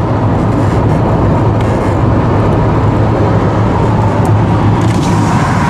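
Steady engine and tyre noise of a car at motorway speed, heard inside the cabin, with a constant low drone.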